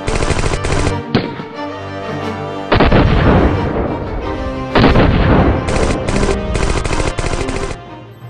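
Rapid gunfire sound effects over background music: a burst in the first second and a longer run of bursts about six seconds in.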